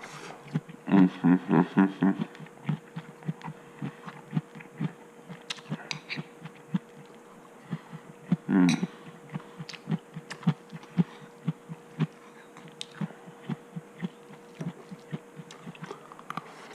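Close-miked chewing of a bite of vegetable omelette: a steady run of short wet mouth clicks and smacks. There are brief hummed sounds about a second in and again about halfway, and a faint steady hum underneath.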